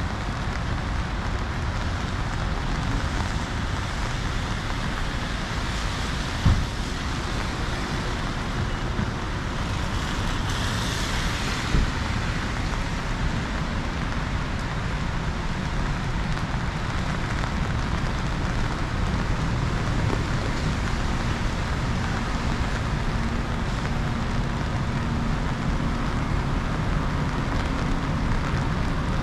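Steady rain with city traffic on wet streets, a vehicle hissing past about ten to twelve seconds in. Two short thumps stand out, about six and a half and twelve seconds in.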